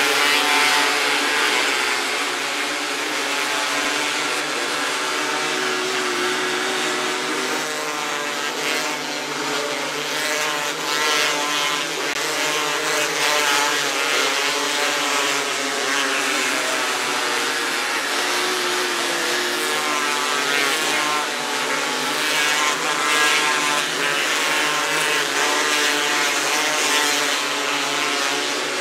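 270cc micro sprint cars racing on a dirt oval, their engines whining up and down in pitch as they power through the turns and down the straights, several engines overlapping.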